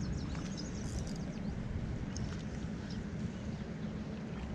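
Outdoor lakeside ambience: a steady low rumble of wind on the microphone, with faint short bird chirps, mostly in the first second.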